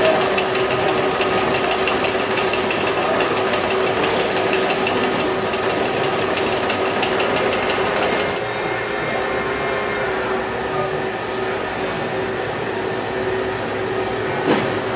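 Automated packaging-line machinery running with a steady hum and a fast mechanical rattle. The rattle drops away about eight seconds in, leaving the hum, and there is a single knock near the end.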